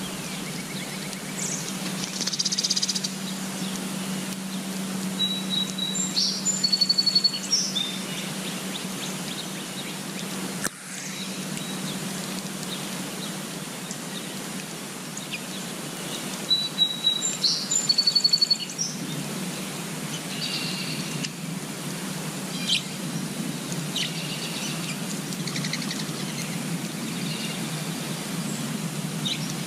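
Small songbird singing high, quick phrases with a rapid trill, the same phrase twice about ten seconds apart, then scattered short chirps, over a steady outdoor background noise.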